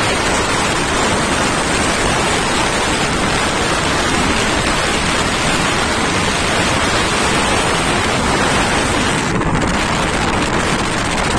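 Loud, steady rush of wind buffeting a microphone on a motorcycle moving at highway speed.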